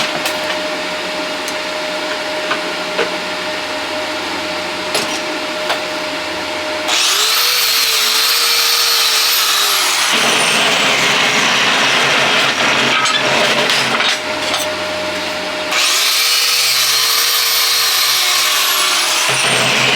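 Handheld power grinder, most likely an angle grinder, starting about seven seconds in with a high whine that falls in pitch as it bears on the steel plate, then starting again about sixteen seconds in. Before it there is a steady hiss.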